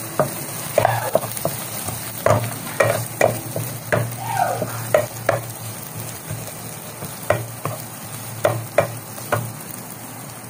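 Chopped onion, garlic and ginger sizzling in oil in a nonstick wok while a wooden spatula stirs them, scraping and knocking against the pan in irregular strokes.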